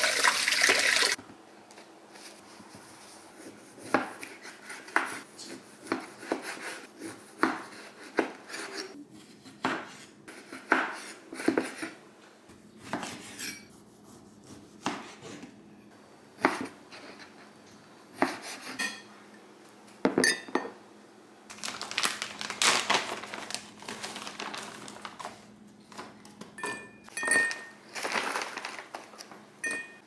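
A kitchen tap runs briefly and cuts off about a second in. After that a chef's knife slices oranges and limes on a wooden cutting board, with a series of sharp knife knocks on the board, one or two a second.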